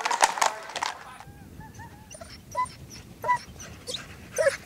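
Horses' hooves clip-clopping on a tarmac road for about the first second. Then a pack of hunting hounds gives short, scattered yelps and whines as it runs.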